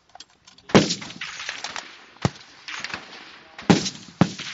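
Four rifle shots from the firing line, each a sharp crack with a short ringing tail. The first, just under a second in, is the loudest, and two more come close together near the end.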